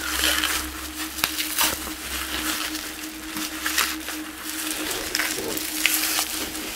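Packing material crinkling and crackling in irregular bursts of small sharp clicks as an item is unwrapped by hand.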